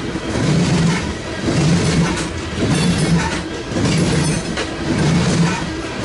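Freight train rolling past, its cars going by with a rhythmic rise and fall about once a second.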